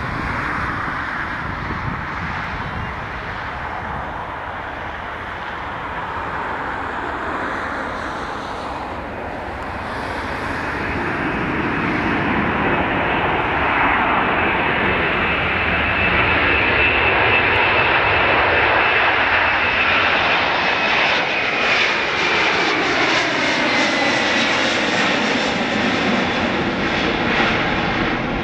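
Airbus A330-300's Rolls-Royce Trent 700 jet engines at takeoff thrust, growing louder about halfway through as the airliner lifts off and climbs past. A high engine whine slides down in pitch near the end as it goes by.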